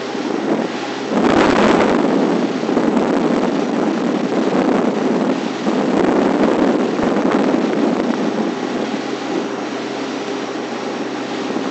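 Wind buffeting a boat-mounted camera's microphone: a loud, steady rushing noise that steps up about a second in, over a steady low hum.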